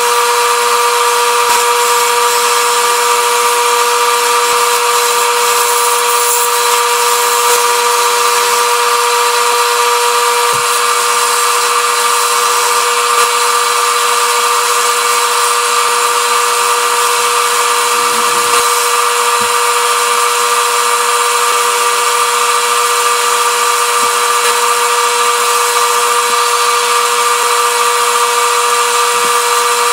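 Wood lathe running with a steady motor whine while a hand-held turning tool cuts a spinning blue-epoxy-and-cedar pen blank, a continuous hissing cut under the hum.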